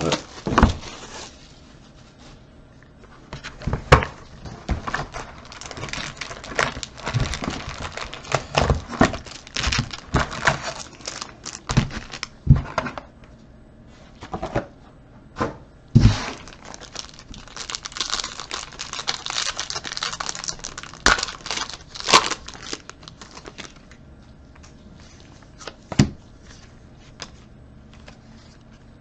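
Trading-card pack wrapper crinkling and tearing as it is opened, with cards rustling as they are pulled out and handled. Scattered sharp taps and clicks throughout, densest through the middle and sparser near the end.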